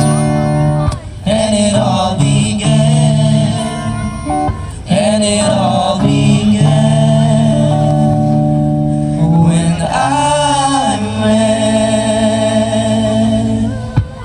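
Male voices singing long held notes over acoustic guitar in a live acoustic performance.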